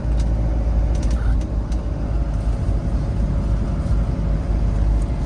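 Vehicle engine and road rumble heard from inside the cabin while driving, steady and low, with a few faint rattles about a second in.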